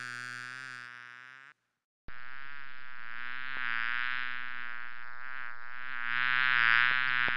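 Housefly buzzing in flight, a steady, slightly wavering drone. It stops dead about a second and a half in, starts again abruptly half a second later, and grows louder near the end.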